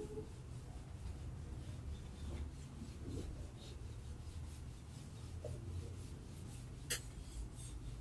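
Faint scratching strokes of writing, over a low steady hum, with one sharp click about seven seconds in.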